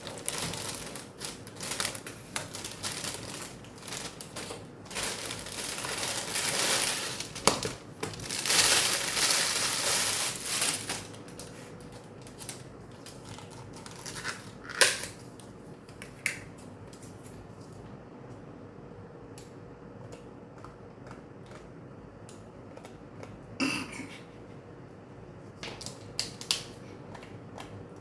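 Crinkling and rustling of plastic takeout packaging being handled, heaviest through the first ten seconds or so, then scattered clicks and knocks of containers and utensils being set down.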